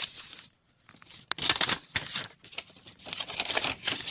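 Paper rustling and crinkling in short bursts as sheets are handled, loudest about one and a half seconds in and again around three seconds in.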